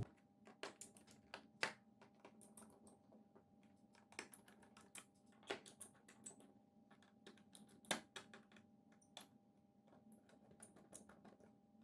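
Faint, irregular small clicks and ticks of a screwdriver tightening the screws of a laptop's plastic bottom cover, over a faint steady hum.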